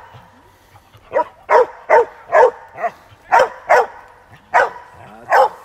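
A dog barking repeatedly: about nine short, sharp barks in uneven runs, a run of five quick barks, then a pair, then two more spaced out.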